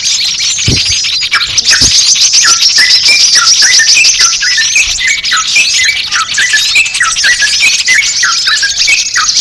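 A dense, continuous chorus of small birds' rapid high chirps and trills, with shorter lower chirped notes repeating several times a second. It is a bird-lure (pikat) recording used to attract small birds.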